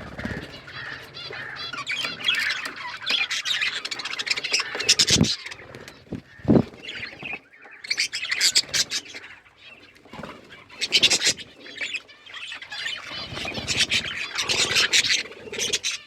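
A flock of budgerigars chirping and chattering, many overlapping high calls at once. Two short low thuds come about five and six and a half seconds in, with a lull near the middle.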